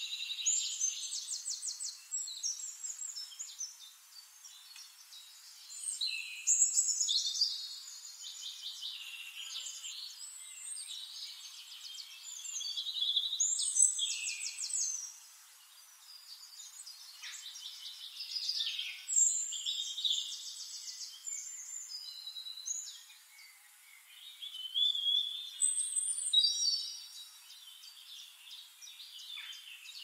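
Small songbirds chirping and trilling in high-pitched, rapid phrases, several calls overlapping and coming in bursts.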